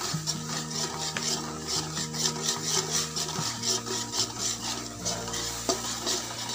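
Metal spoon stirring and scraping sauce around an aluminium wok, in repeated strokes about three or four a second, over background music.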